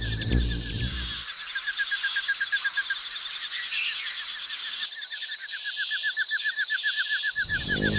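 A small bird chirping in a fast run of short repeated notes, several a second, fading a little in the middle and picking up again. A low rumble sounds at the start and again near the end.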